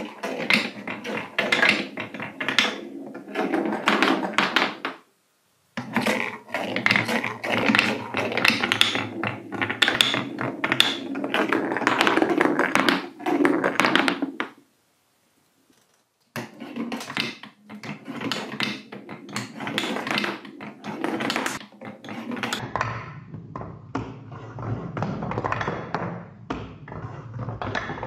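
Wooden balls and glass marbles rolling and clattering down a wooden-and-plastic marble run, with many rapid small knocks as they hit the track pieces, walls and blocks. The rattling stops briefly about five seconds in and again around the middle, then starts up again.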